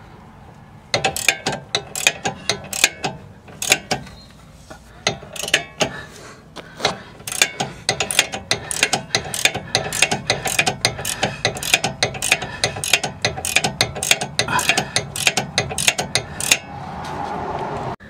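Hand socket ratchet clicking in quick runs of strokes as it turns the nut down onto a new sway bar end link, the clicks stopping near the end.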